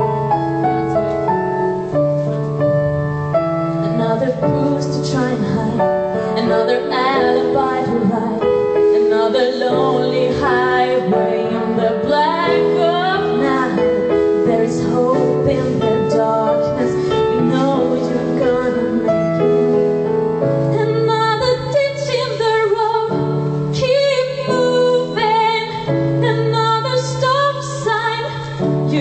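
Live piano accompanying a woman singing a pop ballad, the piano's held chords steady beneath her voice.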